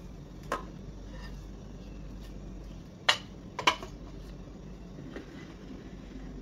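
A ceramic serving plate and an aluminium loaf tin knocking against each other and the stone countertop as a crème caramel is turned out: a light clink about half a second in, then two sharp knocks about half a second apart a little past the middle, and a faint click near the end.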